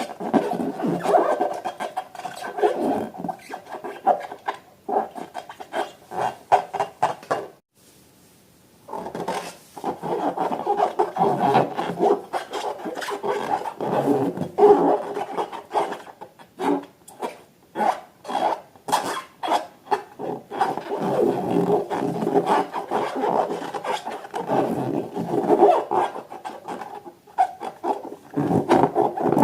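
Rubber balloons being handled, rubbing and squeaking in irregular strokes, with a short pause about eight seconds in.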